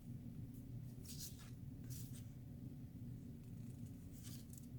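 Soft, brief rustles of paper as the pages of a scrapbook book and the items tucked inside it are handled, a few times, over a low steady hum.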